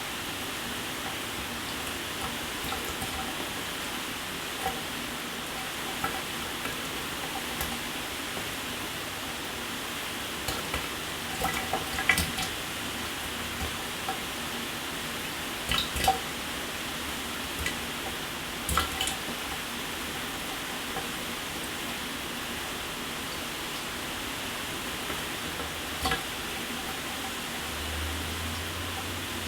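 Shower running steadily, a continuous hiss of falling water with a few sharp drips and splashes scattered through it, most around the middle.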